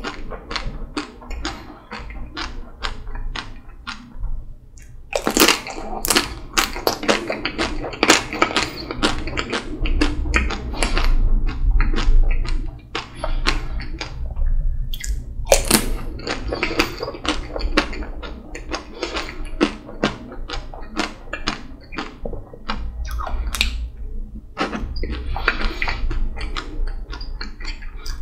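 Close-miked eating of a chocolate-coated Magnum ice cream bar: wet mouth sounds and rapid small clicks of biting and chewing, with a few sharper crunches of the chocolate shell.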